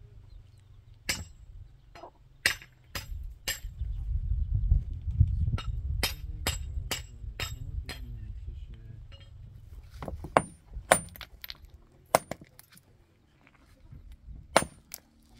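A mason's hammer striking and chipping stone: sharp clinks with a brief metallic ring, irregular, often in runs of about two a second, more than a dozen in all. A low rumble lies under the strikes for several seconds in the middle.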